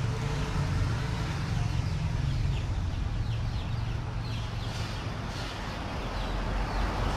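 Small birds chirping again and again in quick short notes over a steady low rumble, like distant traffic.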